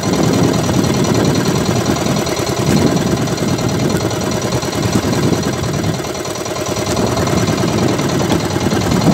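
Small outrigger fishing boat's engine running steadily under way, a rapid, even low thudding that holds the same pace throughout.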